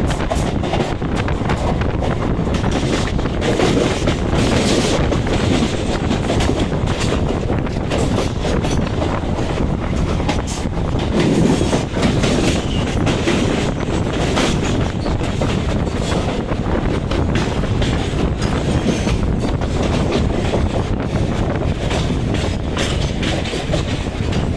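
Rake of BCNA covered freight wagons passing close alongside a moving electric suburban train: a loud, steady rushing rattle with dense clattering of wheels over rail joints, heard from the train's open doorway.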